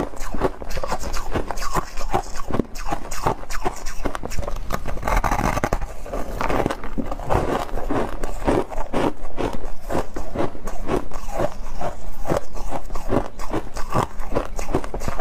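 Refrozen shaved ice being bitten and chewed close to a clip-on microphone: a fast, continuous run of crisp crunches.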